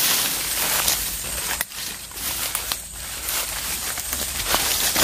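Footsteps and rustling as someone pushes through ferns and dense undergrowth, with a few sharp snaps of twigs or dry leaves underfoot.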